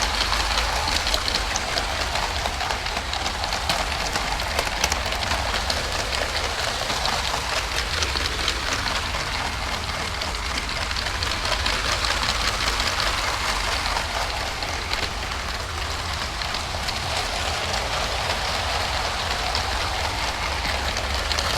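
LEGO train running on plastic track, heard from on board: a steady dense rattle and clicking of the plastic wheels and wagons over the track, over a low rumble.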